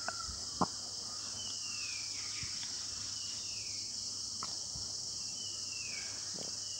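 Steady high-pitched insect chorus, with a short falling chirp repeating about once a second and two small clicks near the start.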